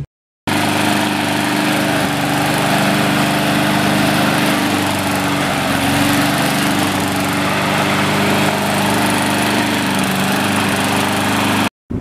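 The petrol engine of a lawn mower over 30 years old, running steadily at a constant speed. It starts about half a second in and cuts off suddenly just before the end.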